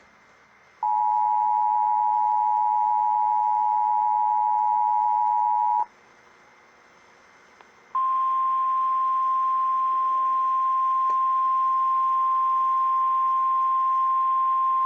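Emergency Alert System weekly-test tones on NOAA Weather Radio. First comes the two-tone attention signal, two steady tones sounded together for about five seconds. After a two-second pause comes the single steady 1050 Hz weather radio alert tone, lasting about seven seconds.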